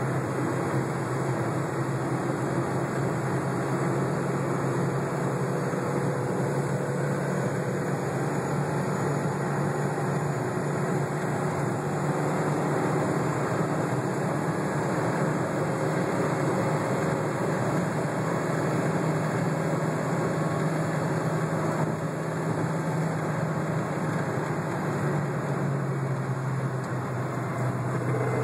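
Car driving along: steady engine and road noise with a low drone that swells and eases slightly.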